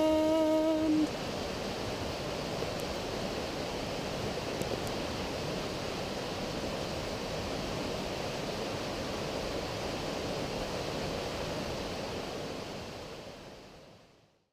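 Steady rush of water from a small rocky stream with rapids, fading out near the end. A held sung note ends about a second in.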